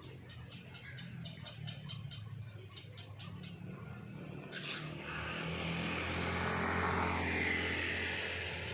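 A motor vehicle's engine passes by, rising to its loudest a little after halfway and easing off near the end, over insects chirring in the first half.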